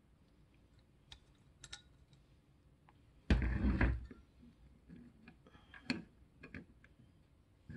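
Small glass dropper bottle and plastic dropper parts being handled on a tabletop: scattered light clicks and taps, with one louder thump and rustle lasting under a second about three seconds in.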